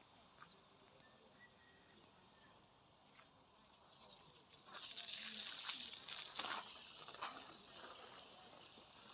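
Water spraying from a garden hose, starting about four and a half seconds in as an uneven hiss. Before that, a few faint bird chirps.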